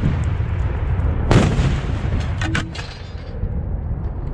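Explosive demolition charges going off: the rumble of a blast carries on, a second sharp blast hits about a second and a half in, then debris clatters down and the rumble eases.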